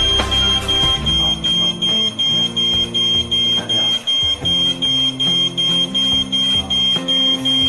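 Smoke detector alarm sounding: a high-pitched beep repeating rapidly, about two and a half beeps a second, which cuts off suddenly at the end.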